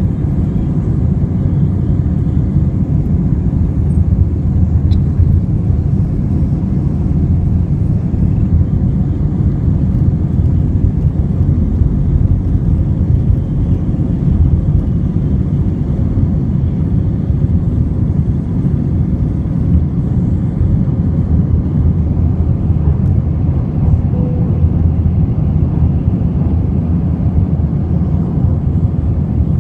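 Jet airliner engines at takeoff power heard from inside the cabin: a loud, steady low rumble through the takeoff roll and first climb after liftoff.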